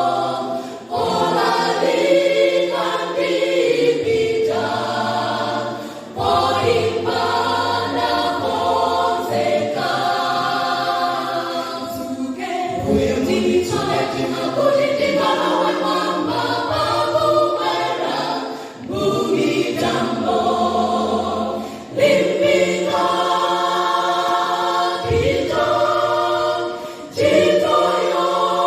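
Church choir singing a song in Chichewa, many voices in harmony with a steady low bass part. The sung phrases are separated by short breaks.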